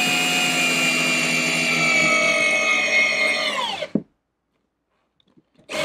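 Festool CXS 12 V compact drill in low gear driving a 3-inch screw into oak: a steady motor-and-gearbox whine for nearly four seconds that sags a little in pitch as the small drill struggles, then winds down and stops with the screw just below flush.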